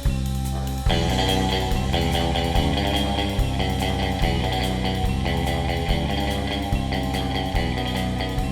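Background rock music with electric guitar and a drum kit keeping a steady beat, growing fuller about a second in.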